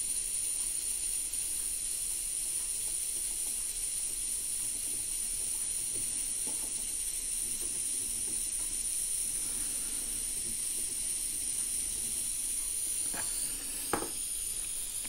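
Rothenberger 3-in-1 butane gas soldering iron running lit: a steady hiss of burning gas and hot air blowing from its side vents, with a few faint handling clicks. The hiss shifts slightly near the end.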